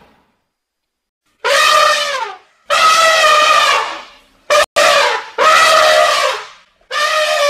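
An animal giving a series of drawn-out pitched calls, each about a second long, with short gaps between them.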